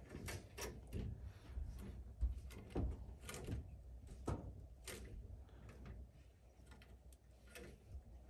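Scattered light clicks and knocks of a corrugated flexible gas connector being handled and its flare-end fittings worked into place by hand, mostly in the first five seconds.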